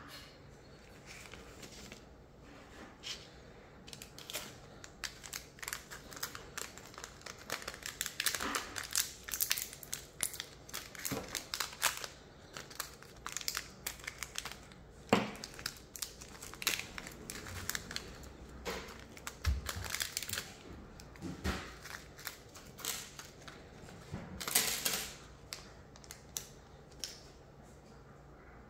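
Hands handling the small parts and packaging of a solar car kit: irregular crinkling and rustling with sharp little clicks, loudest about halfway through and again near the end.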